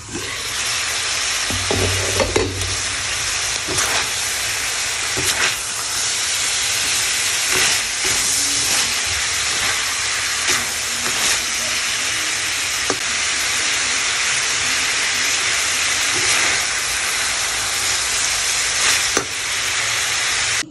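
Pork pieces and diced bell peppers sizzling in a hot pan as they are stir-fried, with a steady frying hiss and scattered sharp clicks and scrapes of a slotted spatula against the pan.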